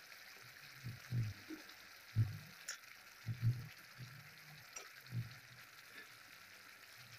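Curd-based gravy sizzling faintly and steadily in a pan at the boil, with fried idli pieces stirred into it and a few dull knocks of the spoon against the pan.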